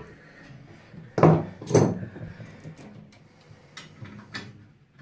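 Two short knocks about half a second apart, a little over a second in, then faint handling noise.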